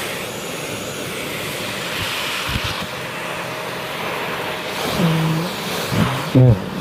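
Vacuum cleaner running with a steady rushing noise. About five seconds in it starts giving short, low, buzzing blurts that sound like farting, the loudest near the end.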